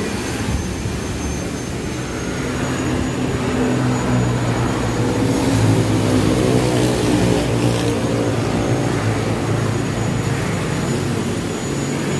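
A motor vehicle engine running with a low, steady hum, growing louder over the first several seconds and then holding.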